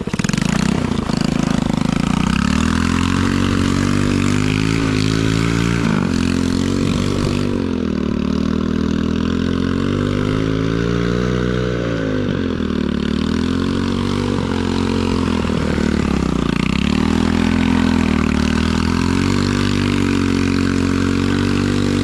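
Small 110cc four-stroke ATV engine running under throttle, its pitch repeatedly dropping and climbing again as the revs fall and rise.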